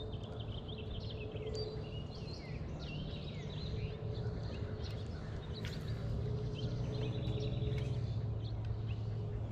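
Several birds singing and chirping from the shoreline trees, over a steady low hum that grows a little louder in the second half.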